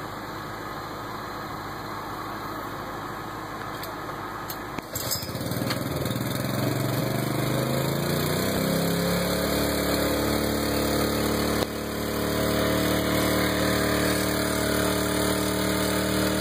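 An engine runs steadily at low speed, then about five seconds in it speeds up, its pitch rising, and holds at the higher speed, running under load.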